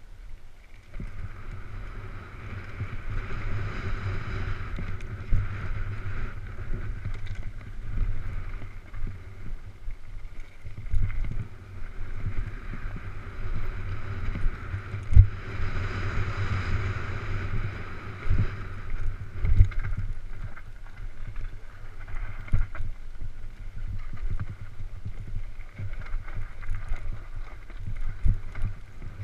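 Downhill mountain bike descending a rocky dirt trail at speed: wind rumbling on the camera microphone, with tyres rolling over dirt and stones and frequent knocks and rattles from the bike over rough ground.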